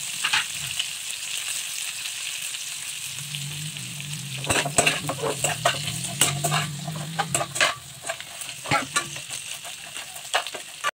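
Dried fish sizzling in sauce in a frying pan, stirred and turned with a spatula that scrapes and clicks against the pan over a steady hiss.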